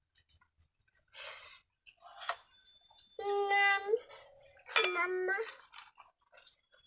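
Stainless steel bowls and cups clinking and scraping as rice is eaten by hand. A toddler gives two high-pitched calls in the middle.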